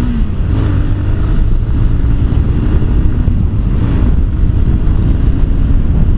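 Honda CBR150R's single-cylinder engine running steadily while riding at road speed, under heavy wind rumble on the microphone. The engine note dips slightly just after the start.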